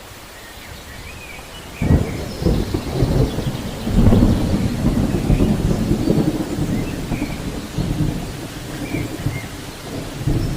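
Waterfall in monsoon flow, a loud rushing roar with a heavy low rumble that comes in suddenly about two seconds in after a faint hiss.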